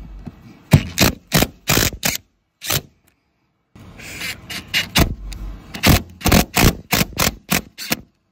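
Irregular series of sharp clicks and knocks from hand work on a power inlet port being fitted into a van wall. The sound stops for about a second partway through.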